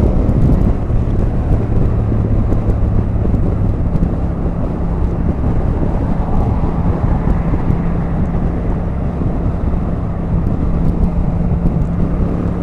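Motorcycle cruising at motorway speed: a steady engine drone under heavy wind rush on the rider's microphone.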